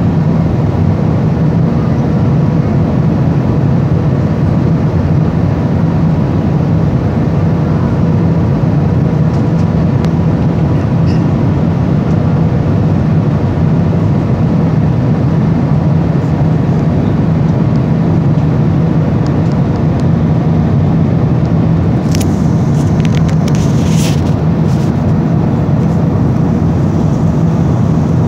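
Steady cabin noise of an Airbus A320-214 airliner on approach: its CFM56 turbofan engines and the airflow over the fuselage give a loud, even rush with a faint steady hum. A few faint clicks and rattles come about 22 seconds in.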